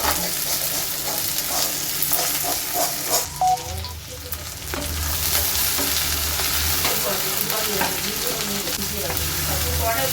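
Chopped carrots and beans sizzling in a little hot oil in a karahi, stirred with a spatula that clicks and scrapes against the pan. A low hum runs under it from about a third of the way in.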